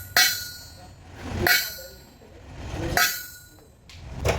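Metal clanging: four ringing strikes on steel, about a second and a half apart, each ring dying away before the next.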